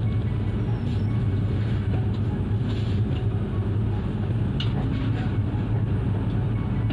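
Steady running noise of a Shatabdi Express passenger train, heard from inside the coach: an even low hum and rumble.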